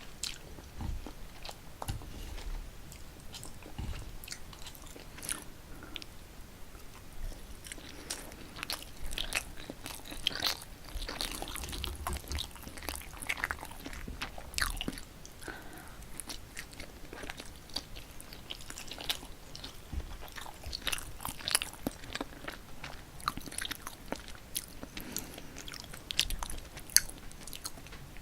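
Close-miked chewing of spicy cold mixed noodles (Paldo bibimmyeon): a steady run of small, irregular wet mouth clicks and bites.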